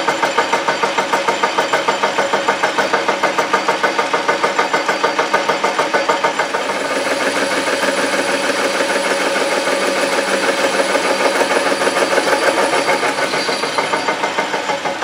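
1931 South Bend 11 metal lathe running, with a rhythmic pulsing about four or five times a second, as a tool bit machines the end of a pipe held in a steady rest. About halfway through, the pulsing evens out and a steadier tone comes up under the cut.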